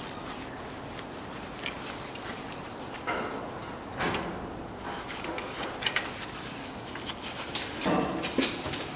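Pliers working a hose clamp on a transmission oil hose: scattered small metallic clicks, with a few brief scrapes about three and four seconds in and again near the end.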